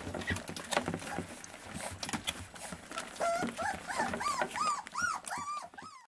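Newborn puppies feeding, with wet suckling clicks, then from about three seconds in a run of short high squeaking whimpers, about three a second, that cuts off suddenly near the end.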